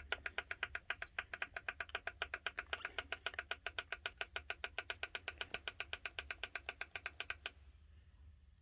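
Heat press digital control panel clicking rapidly and evenly, about eight short clicks a second, as the temperature setting is run up toward 400 °F. The clicking stops about seven and a half seconds in.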